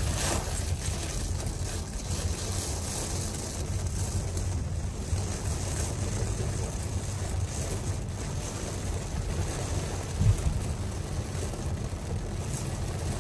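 Heavy rain pelting a moving car's windshield and roof, over a steady low road rumble and tyre hiss on the wet road, heard from inside the cabin. A single brief thump about ten seconds in.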